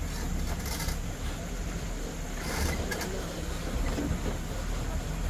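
Safari vehicle's engine running steadily as it drives along a forest track, with two brief bursts of noise, about a second in and about halfway.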